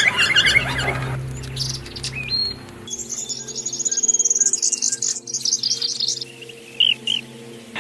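Songbirds chirping and twittering in quick high trills, with the mix of calls changing abruptly a few times, a short rising whistle, and two quick upswept chirps near the end. A steady low hum runs underneath.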